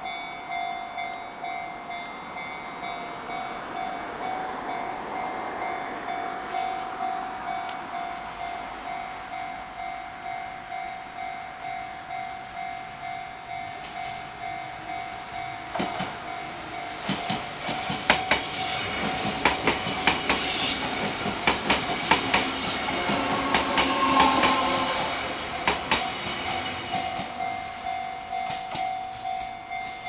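Japanese level-crossing warning bell ringing in a steady repeating pattern. About halfway through, an electric train of the Hakone Tozan Railway passes over the crossing: louder running noise and the clatter of wheels over rail joints nearly drown the bell for about ten seconds. The bell rings on as the train clears and stops at the very end.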